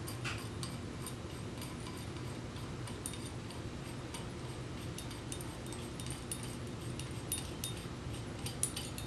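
Scattered light metallic clicks and taps as the puller and jam nut are unscrewed by hand from a Huck 12 mm BobTail lockbolt-tool nosepiece, over a steady low hum.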